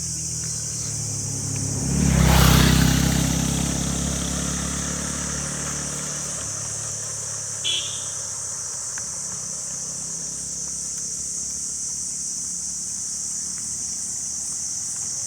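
A motor vehicle passes close by about two seconds in, its engine sound rising and then fading away over a few seconds. Under it runs a steady high-pitched insect chorus.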